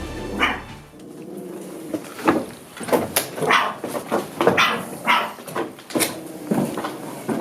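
Stray dog barking in a string of short, sharp barks, about one or two a second.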